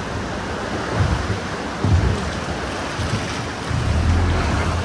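Sea water splashing and slapping against a small motorboat's hull and the rock, over the low run of the boat's motor, with heavier slaps about one and two seconds in.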